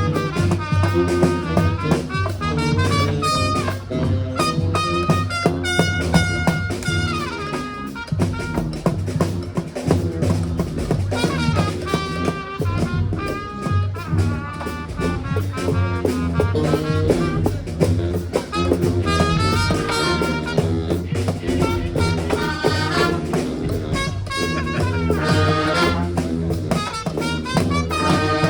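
Brass band playing live: horns playing an up-tempo tune over a steady drum beat.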